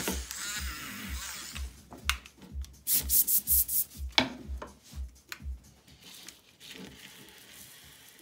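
Several quick rubbing and brushing strokes against drawing paper around the middle, over background electronic music with a steady beat that fades out about two thirds of the way in.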